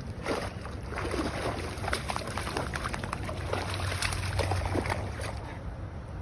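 Dog swimming and wading in bayou water, irregular splashing and sloshing, with a steady low rumble underneath. The splashes thin out near the end.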